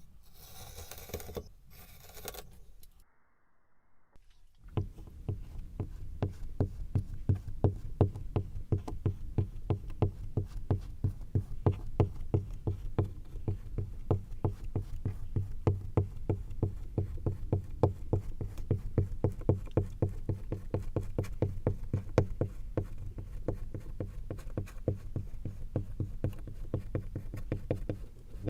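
Kinetic sand being handled. A couple of short bursts of crumbling hiss, a brief pause, then from about five seconds in a long, even run of soft, rapid, low pats as the sand is squished and pressed.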